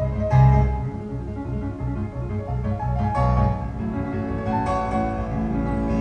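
Classical music played from a CD through a hi-fi system: a Technics stereo power amplifier driving loudspeakers in the room.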